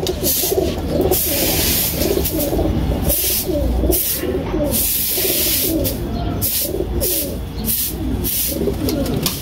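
Domestic pigeons cooing, several low warbling coos overlapping throughout, with repeated bursts of hissing noise.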